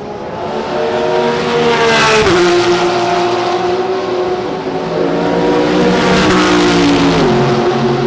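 Race cars going past at speed. Each engine note rises as the car approaches and drops sharply as it goes by: once about two seconds in, and again around seven seconds.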